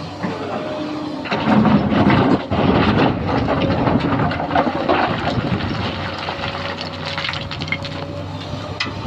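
Sany SY215C excavator's diesel engine running while rocks clatter and scrape in the bucket and truck bed, the clattering heaviest from about one and a half to five seconds in.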